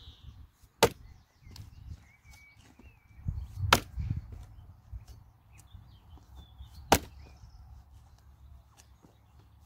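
A Hultafors 1500 g Agdor axe chopping into a log: three sharp blows, about three seconds apart, as the head bites into the wood.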